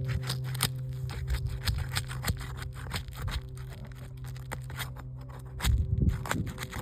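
Roof shingles being pried up with a roof snake: a rapid run of clicks, crackles and scrapes as the tool works under the tabs. A steady low hum runs beneath it and stops about five and a half seconds in, and a few heavier knocks come near the end.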